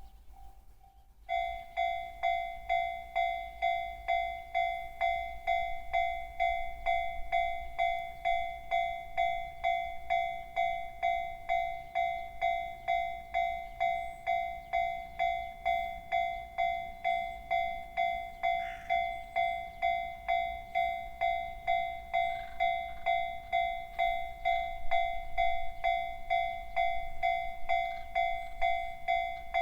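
Japanese railway level-crossing warning bell of the JR standard electronic type, starting about a second in and then ringing steadily at about two dings a second. It signals that a train is approaching the crossing.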